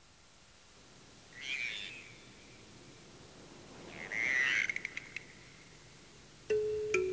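Two rasping, croak-like calls about three seconds apart, the second followed by a few quick clicks. Near the end, ringing mallet-percussion notes begin.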